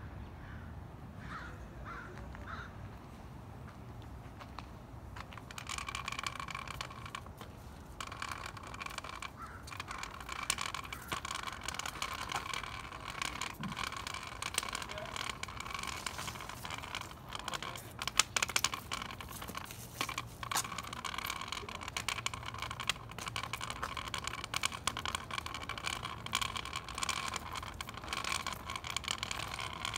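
Steady mechanical whine from the porta potty truck's vacuum pump, starting about five seconds in and holding steady, over a low engine hum. Frequent clicks and scrapes from the phone being handled run through it.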